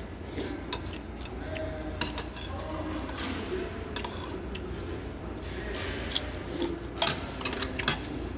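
Metal spoon and chopsticks clicking and scraping against a bowl and tray while eating, with a cluster of sharp clinks near the end, over a steady low hum.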